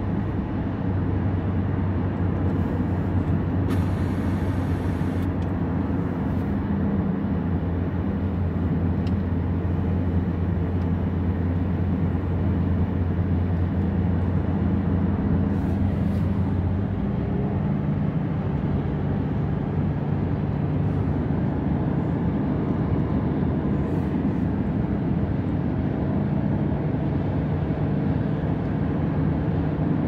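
Steady road noise heard inside a moving car's cabin: engine and tyre drone. The low hum steps up to a higher pitch a little past halfway through.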